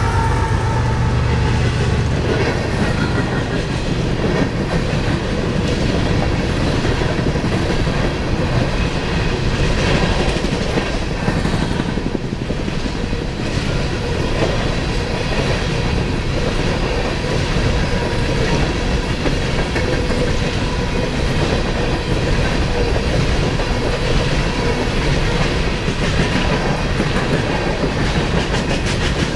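A mid-train GE ES44AC diesel locomotive runs past in the first couple of seconds and fades. A long string of coal cars follows, rolling by with a steady rush of wheel noise and rapid clicking over the rail joints.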